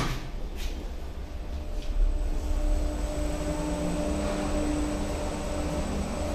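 Glass-walled lift cabin setting off and travelling upward: a steady drive hum with a thin high whine, which sets in about two seconds in.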